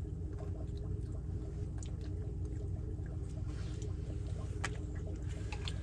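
A steady low hum, with a few faint clicks and taps near the end.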